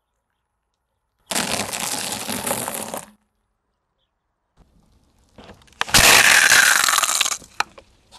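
Dry breadsticks crunching and snapping under a car tyre on asphalt, for about two seconds. A second, louder crushing burst follows about six seconds in, opening with a sharp knock and ending in a few cracks.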